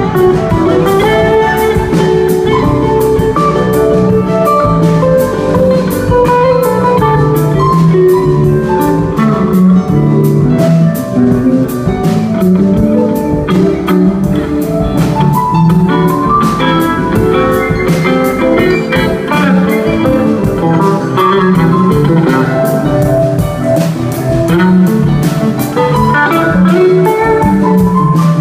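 A live rock band playing an instrumental jam: an electric guitar plays a fast, winding lead over bass guitar and a drum kit.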